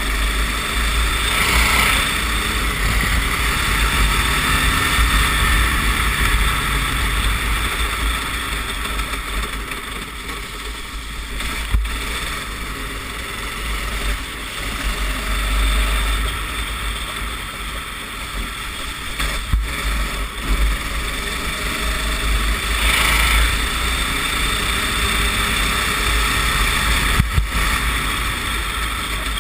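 Racing kart engine running at speed under an onboard camera, with heavy wind rumble on the microphone and a hiss of noise over it. The level swells and dips as the kart speeds up and slows, and three sharp knocks come through.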